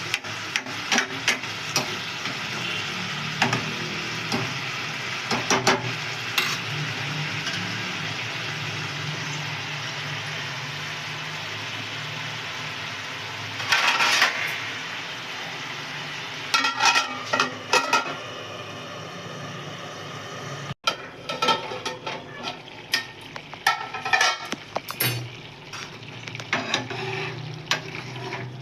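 Ridge gourd curry sizzling as it fries in a pan, with a spatula stirring and scraping against the pan in repeated clicks and scrapes. After a short break about two-thirds through, the sizzle is fainter and the stirring clatter goes on.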